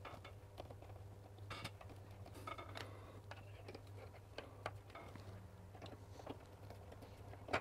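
Hand screwdriver driving screws through a plastic smoke-alarm backing plate into a ceiling: faint scattered clicks and scrapes, with one sharper knock near the end.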